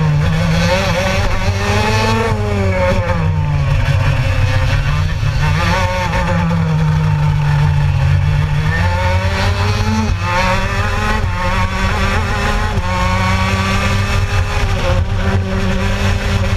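Gilera kart engine at racing speed, heard from on board. Its pitch drops as it comes off the throttle and rises again as it accelerates, several times, with the longest low stretch from about six to eight and a half seconds in.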